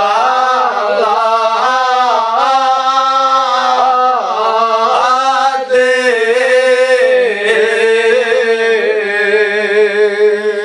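A man chanting a Kashmiri Shia mourning recitation (mazmoon) solo, without instruments. He holds long, wavering notes that glide and ornament from one pitch to the next.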